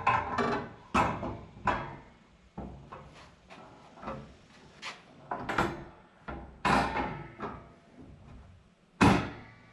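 Metal wall-shelf parts knocking and clattering as they are set into their brackets: about a dozen separate knocks, each ringing briefly, with a loud one near the end.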